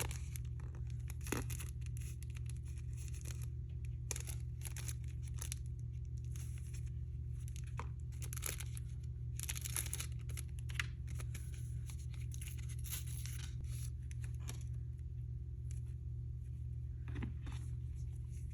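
Small plastic packaging from a phone camera lens protector kit being torn and crinkled in short, scattered rustles, over a steady low hum.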